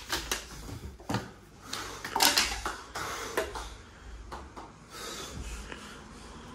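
A scattered run of short knocks, clicks and clinks from objects being handled and moved about, loudest about two seconds in.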